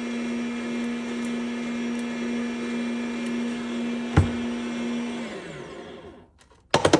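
Electric coffee grinder running steadily on an espresso grind, its motor winding down in pitch and stopping about five seconds in as the timed grind ends. Near the end, a quick run of sharp knocks as the grinder is struck to shake the last grounds out.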